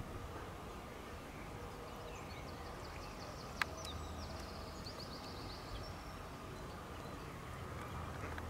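Steady outdoor background noise with a low hum, over which a small bird gives a rapid, high-pitched trill of short chirps in the middle; a single sharp click sounds partway through the trill.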